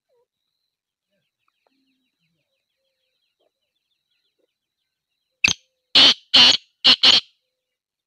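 Male black francolin calling: a short note followed by four loud notes in quick succession, about five and a half seconds in.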